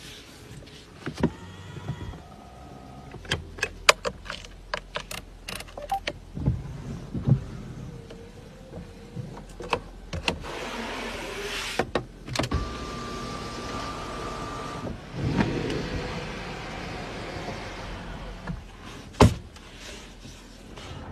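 Cabin controls of a Mercedes-Maybach S-Class being worked by hand: a run of sharp clicks and taps from switches and vent slats. There are two short stretches of whirring hiss, typical of an electric window or blind motor, and a steady beep-like tone lasting about two seconds midway.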